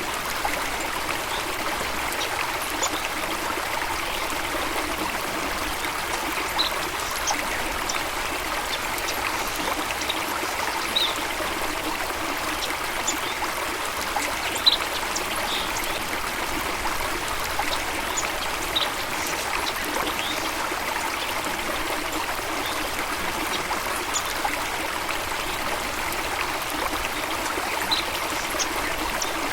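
Steady rushing of flowing water from a stream or small waterfall. A few short, high bird chirps come in here and there, the loudest about halfway through.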